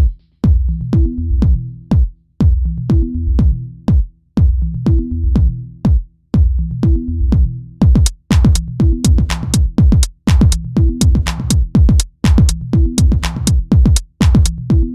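Electronic dance music with a drum-machine beat and a repeating bass phrase about every two seconds; the drum hits come faster about halfway through.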